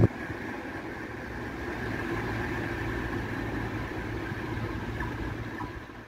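Electric locomotive running away down the line: a steady low rumble that fades out near the end.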